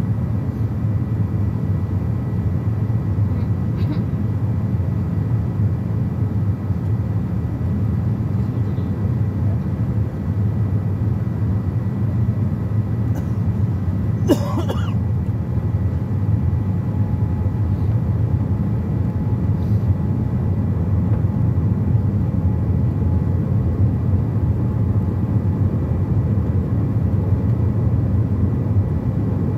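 Steady low cabin rumble of an airliner descending on approach, the engine and airflow noise heard from inside the passenger cabin. About halfway through, a person nearby makes one brief vocal sound.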